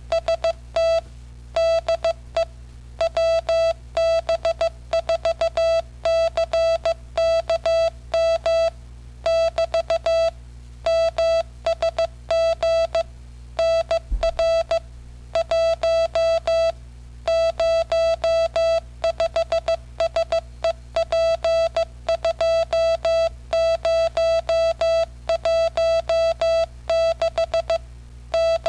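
Morse code sent by an M6800 microcomputer's keyer: a buzzy tone of about 700 Hz switching on and off in dots and dashes, at roughly 13 words per minute, spelling out the message loaded into its text buffer. A steady low hum runs underneath.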